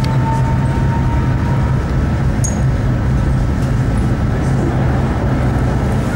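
Tram running, heard from on board: a steady low rumble of the motors and the wheels on the rails, with a faint high tone in the first couple of seconds.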